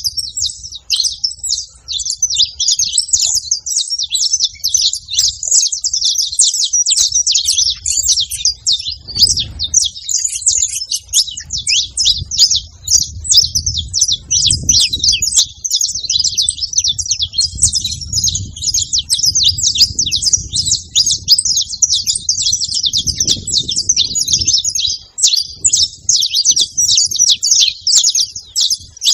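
Many saffron finches chirping and singing at once: a dense, unbroken chatter of short, high, overlapping calls.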